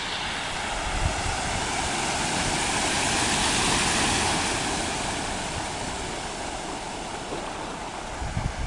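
Rushing floodwater: a steady hiss of water that swells about three to four seconds in and then slowly eases off, with a few low thumps of wind on the microphone.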